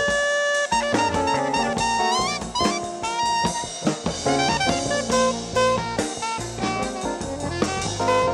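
Jazz quartet recording: a saxophone plays a busy melodic line of quick runs and slides over a drum kit and a walking low bass.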